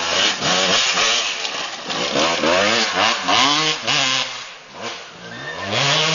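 Enduro motorcycle engine revving hard under throttle, its pitch climbing and dropping several times as the bike takes a jump and accelerates along the dirt track.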